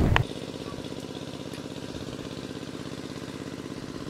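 A brief loud noise at the very start, then an engine running steadily with an even, rapid throb.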